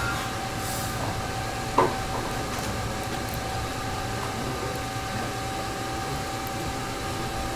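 Steady room hum with a faint constant tone, broken by one short click a little under two seconds in.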